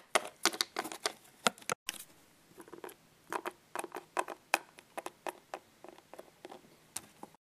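Small plastic toy animal figures tapped and hopped along a wooden tabletop, giving irregular light clicks, a few a second.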